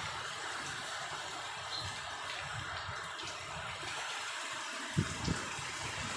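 Heavy rain falling in a storm, a steady even hiss, with two brief low thumps close together about five seconds in.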